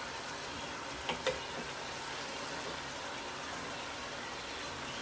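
Beef strips and bell peppers cooking in a pan with a steady hiss, and two quick clicks about a second in.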